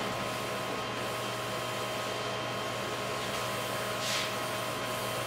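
Steady room hum and hiss, fan-like, with a short soft hiss about four seconds in.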